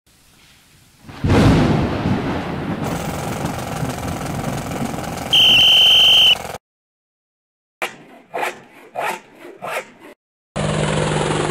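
A string of sound effects. First a thunderclap with long rolling rumble, then a short steady whistle blast about five seconds in. After that come about five rhythmic back-and-forth handsaw strokes through wood, and near the end the steady hum and whine of a power drill starts.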